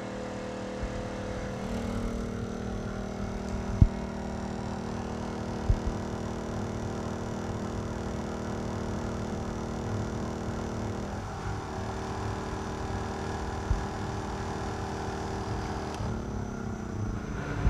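Predator 2000-watt inverter generator running steadily with eco mode off under about a 1500-watt heat-gun load; its engine note shifts slightly about eleven seconds in. A couple of sharp clicks sound about four and six seconds in.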